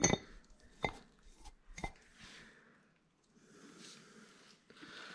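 Three light clicks or knocks about a second apart, then soft rustling noise.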